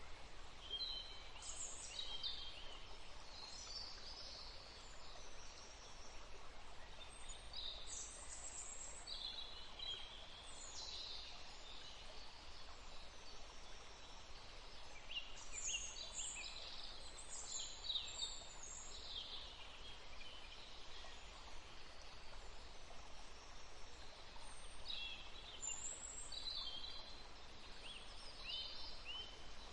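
Small forest birds singing and calling: scattered clusters of high, quick chirps and trills that come and go, over a steady background hiss.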